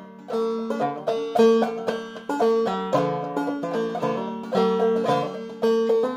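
Heavily strung, low-tuned banjo with a 12-inch head and deep pot, played clawhammer style: repeated struck notes and hammer-ons on a D chord, the four chord in A, ringing with a deep, open sound.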